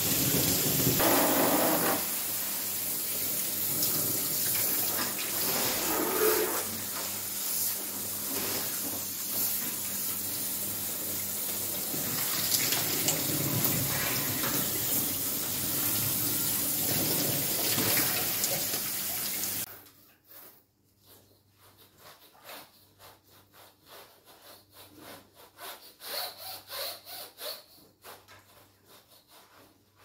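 Water jet from a hose nozzle spraying hard into a split air conditioner's indoor coil and fan: a steady hiss and splash that cuts off abruptly about twenty seconds in. After that, only faint clicks and rubbing from handling the unit.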